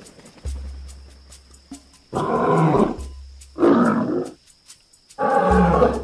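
Three lion roars, each a little under a second long, coming about two, three and a half, and five seconds in.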